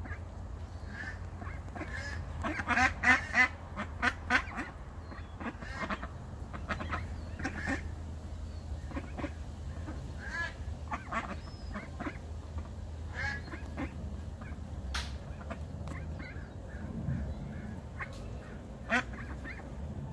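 Adult ducks quacking in short calls, with a loud run of quacks a few seconds in and scattered calls after.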